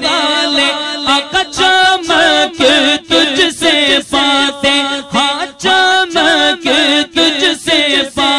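Urdu naat, a devotional song, sung by voice in a chant-like style without instruments.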